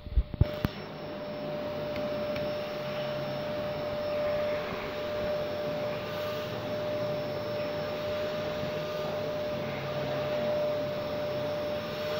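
Canister vacuum cleaner running steadily with a steady whine over its suction noise, its floor brush being drawn over a cat's fur. A few knocks come in the first half-second.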